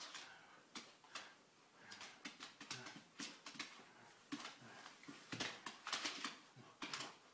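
A Lagotto Romagnolo's claws clicking and scrabbling on a wooden floor during rough play, mixed with hands patting and rubbing its coat. The clicks come in quick bursts, busiest about two to three and a half seconds in and again from about five seconds in.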